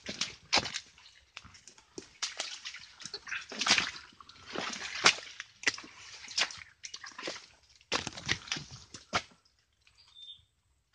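Footsteps squelching and splashing in wet, slippery mangrove mud, with leaves and twigs rustling as the walkers push through the undergrowth, in irregular steps; it dies down about nine seconds in.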